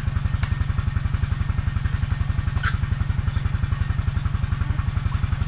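Single-cylinder diesel engine of a two-wheel farm tractor (se kang) running steadily, a fast even thumping of about nine beats a second. Two faint clicks sound over it.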